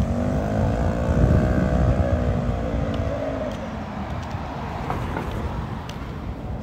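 A motor vehicle driving past on a city street: engine and tyre rumble with a steady whining tone that swells and fades, loudest about a second in.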